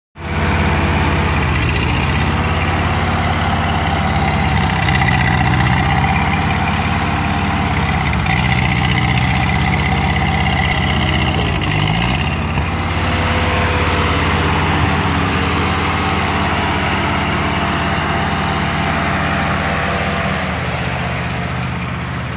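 Old farm tractor's engine running steadily. Its note dips briefly and picks up again about halfway through, and it grows a little fainter near the end as the tractor drives off.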